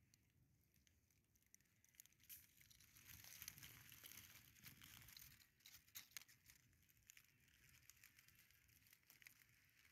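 Near silence, with faint crackling rustles between about two and six seconds in.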